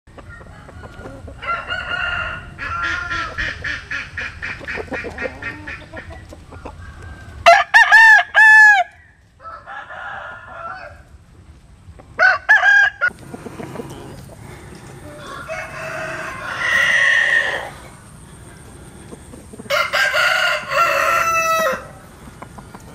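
Roosters crowing several times over, the loudest crow about eight seconds in. Before the first crow comes a run of rapid clucking.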